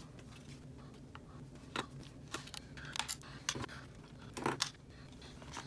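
A handful of light clicks and taps, the loudest about four and a half seconds in, as a graphics card is handled and turned over on a wooden bench while its cooler is being unscrewed.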